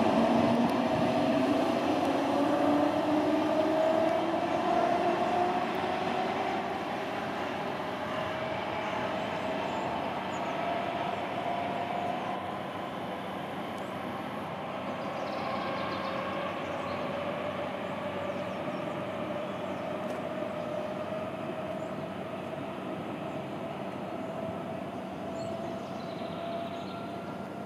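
Berlin S-Bahn class 480 electric train accelerating away: its traction motor whine rises in pitch over the first few seconds, then holds steady as the train recedes and fades, over a running rumble of wheels on rail.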